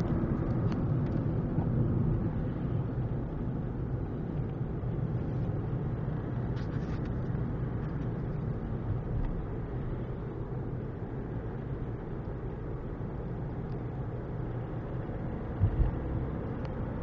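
Steady low engine and road rumble of a car driving at speed, heard from inside the cabin. Two short thumps near the end.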